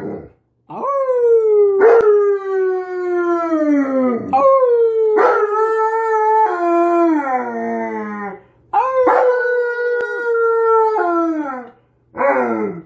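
Alaskan malamute howling: three long, drawn-out howls, the first the longest, each sliding down in pitch as it fades.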